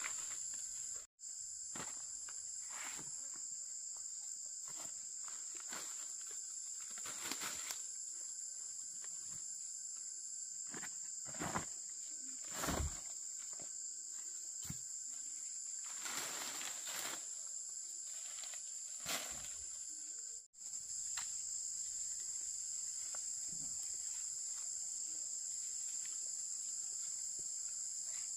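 Steady high-pitched insect chorus, with scattered short knocks and rustles over it. The whole sound drops out briefly twice, about a second in and again past the middle.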